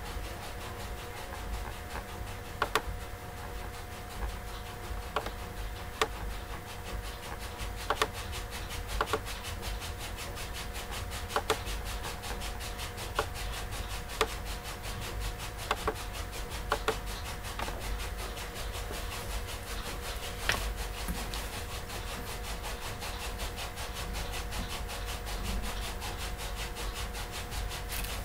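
Steady electrical hum over a low rumble, broken by irregular light clicks and taps about every second or two.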